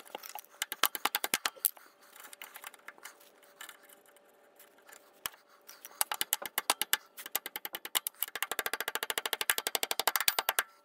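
Sharp metal clicks and taps of a hand tool bending split pins at a shock absorber's lower mount. The taps are scattered at first and become a fast, even run of clicks near the end.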